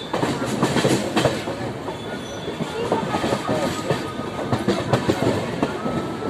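Vikramshila Superfast Express passenger train rolling into the station, its wheels clacking over the rail joints in an irregular run of knocks, with a faint thin wheel squeal in the second half.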